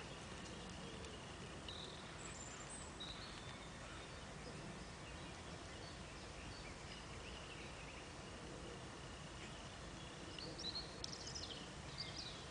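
Quiet outdoor ambience: steady low background noise with a few faint bird chirps, a small cluster of them near the end.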